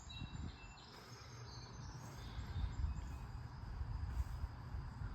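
Faint outdoor ambience: short, thin, high chirps, thickest in the first second or so, over a low, uneven rumble.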